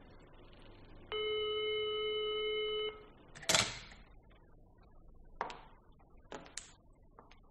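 Telephone sound effect: a steady line tone sounds for about two seconds, followed by a short rustling scrape and a few sharp clicks of the handset as a call is placed.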